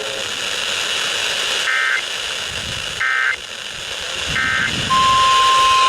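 Emergency Alert System end-of-message signal: three short warbling digital data bursts about a second apart, heard over radio hiss. Near the end a steady single-pitch tone begins.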